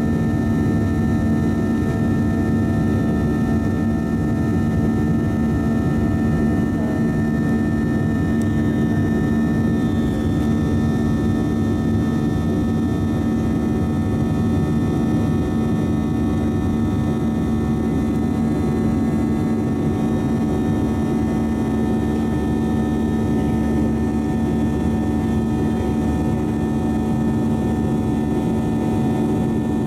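Boeing 737-700's CFM56-7B turbofan engines at climb power shortly after takeoff, heard inside the cabin: a steady drone over a rush of air, with constant hum tones that do not change.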